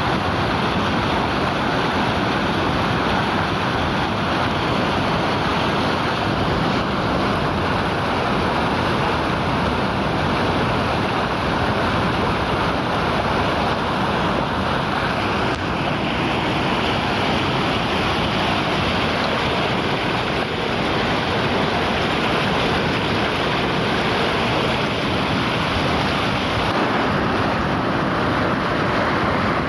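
Steady rush of flowing river water, an even noise without breaks or bird calls standing out.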